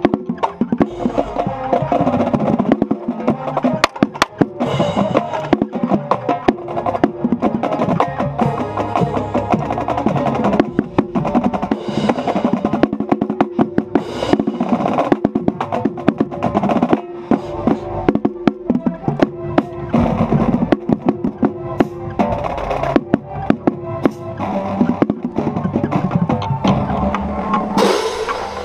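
High school marching band playing its field show: brass with the drumline's snares, tenor drums and bass drums in rapid, dense strokes, heard close up from a camera strapped to a marching bass drum. A cymbal crash comes near the end.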